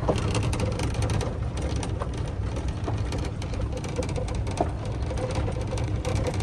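Ride in an open-sided golf cart: the cart's steady running rumble with wind buffeting the microphone and a crackling hiss, plus a faint steady whine.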